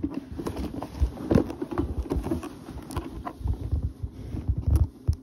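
Cardboard toy box being handled: irregular knocks, taps and scrapes of the cardboard, with low thumps of handling noise on the microphone, the heaviest thumps near the end.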